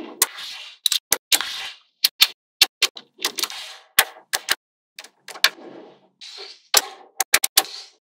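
Small magnetic balls clicking sharply as rows of them snap onto one another, about twenty clicks at an uneven pace, with short rattling stretches as strips of balls are slid and rolled into place on the table.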